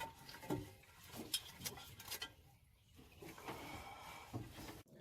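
Scattered light clinks and knocks of hand tools and metal engine parts being handled during an engine teardown.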